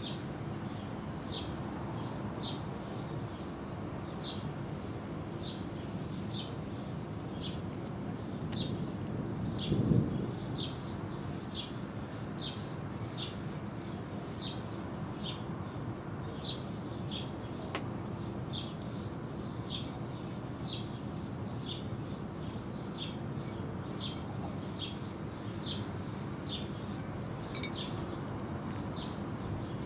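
A bird chirping over and over: short high notes that fall in pitch, about two or three a second, over a steady low hum, with a single thump about ten seconds in.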